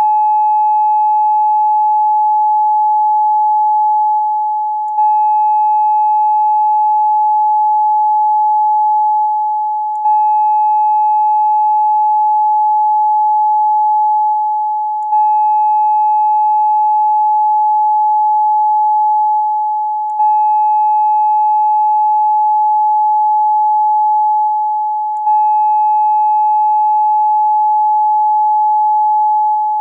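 Steady electronic tone at 852 Hz, one held pitch with faint overtones. About every five seconds it fades a little, then restarts with a faint click, as a loop.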